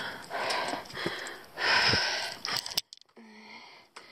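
A hiker breathing hard while scrambling up steep rock, with long panting breaths and scattered knocks and scuffs of climbing on the rock. About three seconds in the sound drops off sharply, and there is a short grunt.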